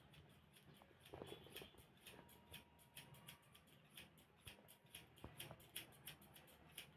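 Barber's scissors snipping hair cut over a comb: a fast, steady run of faint, crisp snips, about five or six a second.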